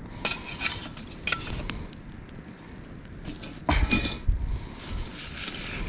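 Metal cookware and utensils clinking and scraping, with scattered light ticks and one louder clank with a short ringing note about four seconds in.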